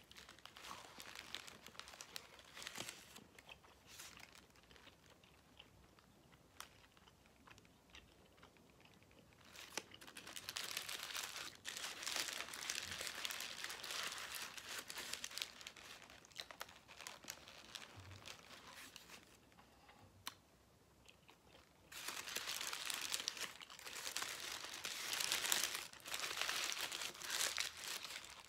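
Paper wrapper around a burrito crinkling and rustling as it is handled and peeled back, in two long spells, one about ten seconds in and another a little past twenty seconds. Between them, quieter small clicks and chewing.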